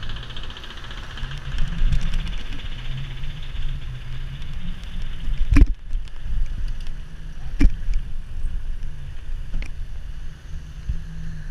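Wind buffeting and road rumble on a camera riding along on a mountain bike rolling over asphalt, a steady rough noise, with two sharp knocks about two seconds apart a little past halfway.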